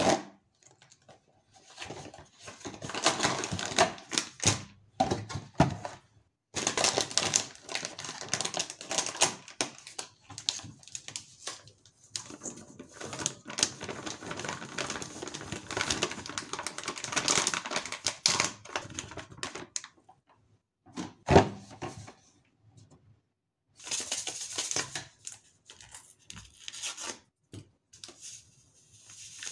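Plastic bag of dry baking mix crinkling and rustling in bursts as it is handled and the mix is poured into a stainless-steel mixing bowl, with one sharp knock about two-thirds of the way through.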